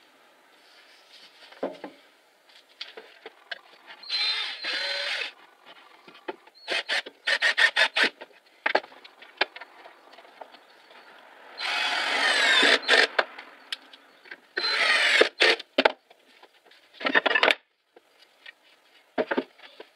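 Cordless drill-driver running in short bursts as it drives screws into a wooden workbench frame, the longest run about twelve seconds in. Between the runs come clicks and knocks of wooden parts and screws being handled.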